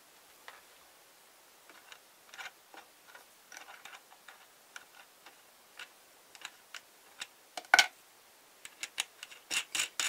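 Scattered light clicks and ticks of a metal nut and threaded bolt being handled and turned by hand on a wooden board, with one sharper click late on and a quick run of clicks near the end.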